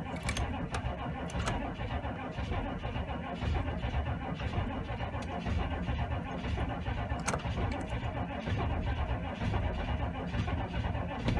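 A 6.5-litre turbo-diesel V8 is being cranked by its starter on a cold, hard start, with the engine struggling to fire.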